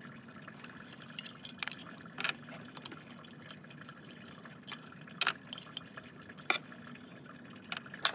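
Engine coolant draining from the radiator petcock into a bucket: a faint steady trickle with irregular sharp drip ticks.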